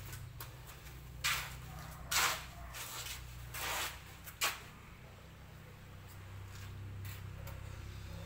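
A few short rustles and clicks, as of small things being handled, over a steady low hum; the handling noises fall in the first half and then stop.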